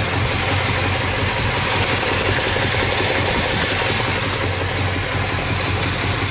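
Factory 340 cubic-inch V8 of a 1971 Plymouth Road Runner idling steadily, all stock with no cam change.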